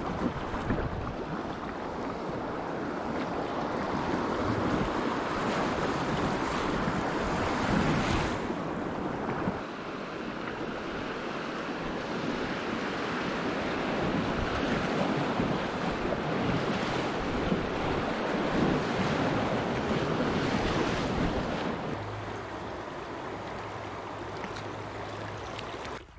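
Rushing, churning river water around the bow of an inflatable kayak running a riffle over a block ramp, with wind noise on the microphone. About four seconds before the end it drops to the quieter sound of calmer flowing water.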